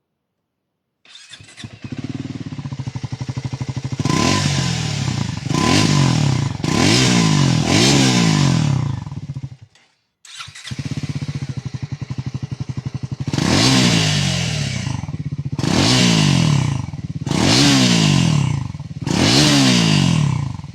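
Two Triumph Scrambler single-cylinder motorcycle engines, the 349cc and the older 399cc, heard one after the other: the first starts up about a second in, idles and is blipped four times, then after a brief silence the second idles and is revved four times. Each rev rises quickly and falls back to idle.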